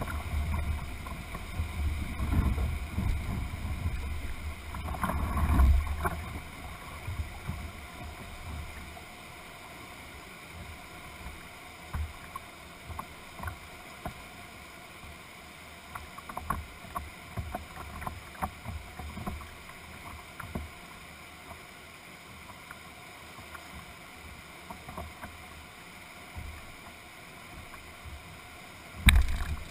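Whitewater rapids rushing past a canoe's hull as the canoe is lined downstream on a rope, with water slapping and knocking against the hull. Heavy low buffeting rumble on the microphone for the first several seconds, then scattered sharp slaps, and one loud knock near the end.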